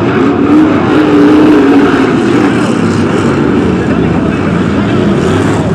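Several BriSCA F1 stock cars' V8 engines racing. The engine notes rise and fall as the cars ease off and accelerate through a bend.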